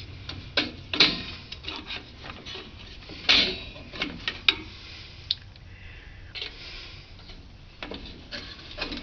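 Irregular metallic clicks, clinks and scrapes of hand tools prying at rear drum brake parts. The strongest knocks come about a second in and a little past three seconds in.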